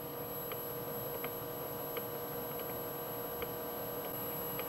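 Noris DATA DR 1535 datasette running in record, a steady motor hum with faint ticks about every three-quarters of a second.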